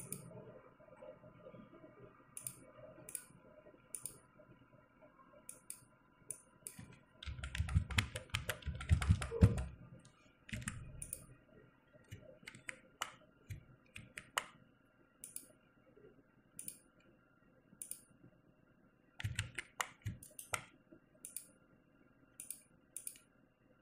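Computer keyboard keystrokes and mouse clicks: scattered single clicks, with two quicker runs of keystrokes, one about seven seconds in and another near twenty seconds.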